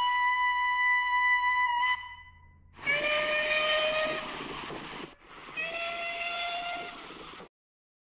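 A steady, clean single-note engine whistle held for about three seconds, then two blasts of a real steam locomotive whistle, Talyllyn Railway No. 2 Dolgoch, each about two seconds long, sounding several notes at once over a hiss of steam.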